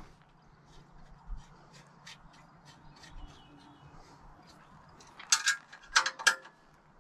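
12 mm ratcheting wrench clicking as a bolt on the sawmill's steel sawhead is snugged up: light scattered clicks, then a louder run of clicks near the end.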